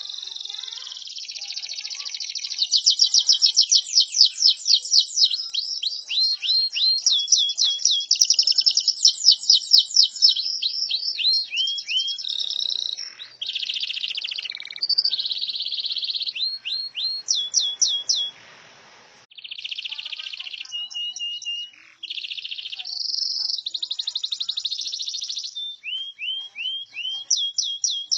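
Domestic canary singing a long, varied song of rapid trills and quickly repeated whistled notes, with a short pause about two-thirds of the way through.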